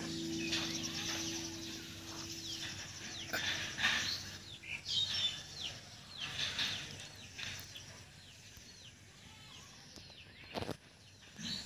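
Birds chirping in the trees: many short, falling chirps. Music fades out in the first couple of seconds, and there is a single sharp click near the end.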